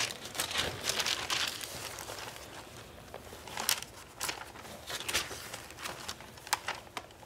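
Thin Bible pages being turned by two people, rustling and crinkling in quick irregular swishes. The swishes are busiest in the first couple of seconds, then come one at a time.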